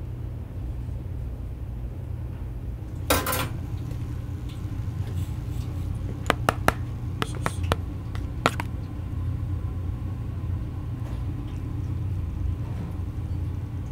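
Metal cookware and utensils clattering and clinking: a short rattle, then about seven sharp clinks in quick groups, over a steady low rumble.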